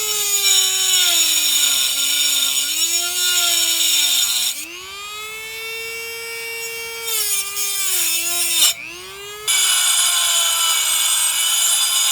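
Handheld power tool with a metal bit cutting into metal: the motor whine sags in pitch under load and climbs when eased off, with a harsh grinding screech over it. The screech stops for a few seconds in the middle while the tool spins freer, and the motor briefly drops out and spins back up.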